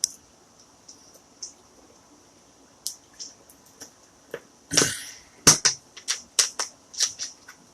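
Sharp clicks and taps of plastic and metal parts being handled on a Dell Latitude E6430 laptop during reassembly. There is a brief scraping rustle about five seconds in, then a quicker run of clicks near the end.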